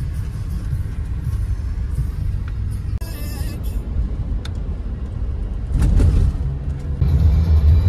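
A steady low rumble of car road and engine noise, heard from inside the car's cabin. There is a brief louder swell about six seconds in, and music comes in near the end.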